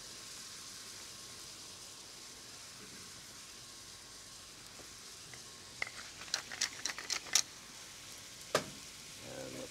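A pan of vinegar-based curry vinaigrette simmering with a steady, faint sizzle. A little past halfway through comes a quick run of clicks, a wooden seasoning mill grinding into the pan, then a single knock near the end.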